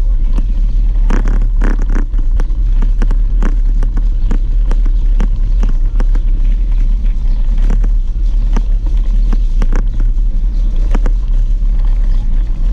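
Bicycle rolling over cobblestones, heard through a bike-mounted camera: a steady low rumble with irregular rattles and knocks as the wheels and frame jolt over the stones.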